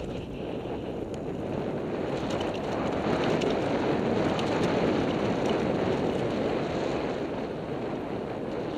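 Wind rushing over a helmet camera's microphone as the bike picks up speed on a dirt trail, swelling to a peak midway and easing toward the end, with faint ticks of tyres on gravel.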